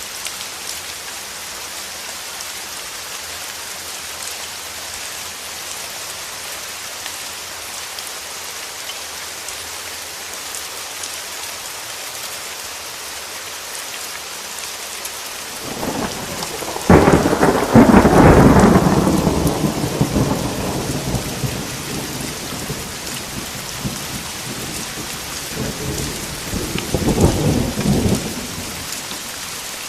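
Steady rain falling with an even hiss, broken about halfway through by a thunderclap that cracks suddenly and rumbles away over several seconds, then a second, weaker roll of thunder near the end.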